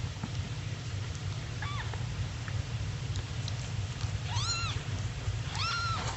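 Newborn kitten squeaking three times, short high-pitched mews that rise and fall: a faint one near two seconds in, then two louder ones near the end, over a low steady rumble.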